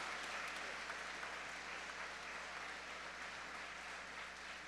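Congregation applauding, the clapping slowly dying away.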